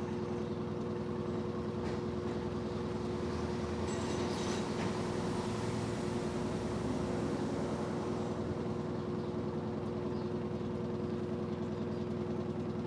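Electrolux LED14 top-loading washing machine running with its lid closed: a steady motor hum, with a short spell of water sloshing about four to five seconds in.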